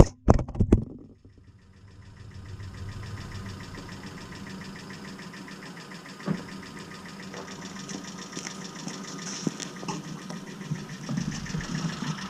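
The quadcopter's brushless motors (EMAX RS2205 2300 kv) spinning steadily at low throttle with a whine of many even tones, after a sudden cut from revving, with a few light ticks. This is the rig the owner says sounds strange since the switch to TBS Bulletproof ESCs on DShot 600.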